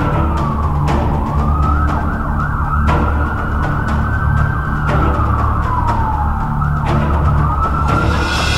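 Emergency siren wailing, its pitch rising quickly and falling slowly about every two seconds, over soundtrack music with steady low notes and a sharp hit at each rise.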